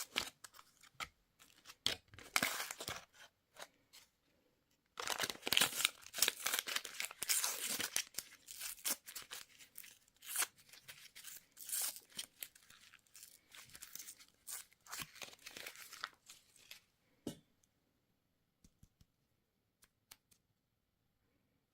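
Candy wrapper being torn open and crinkled, in irregular bursts of crackling. It stops about sixteen seconds in, leaving only a few faint clicks.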